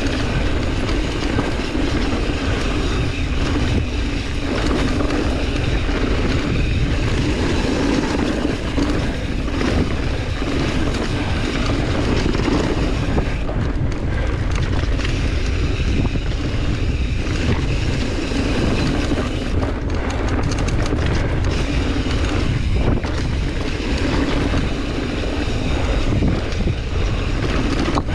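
Mountain bike descending a dirt trail, heard through a GoPro Hero 9's microphone: steady wind rush buffeting the mic over a continuous low rumble of tyres and bike rattle.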